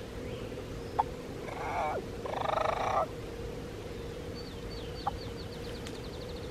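Hen turkey sounds from a hunter's turkey call: a click, a short yelp, then a quick rapid-fire cackle about a second long, the loudest sound here. It is run to make a gobbler answer.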